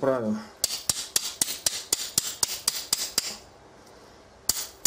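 Quick light hammer taps on steel, about four or five a second, driving a knurled steel tommy bar into a lathe chuck key against the grip of its knurling. The tapping stops for about a second near the end, then starts again.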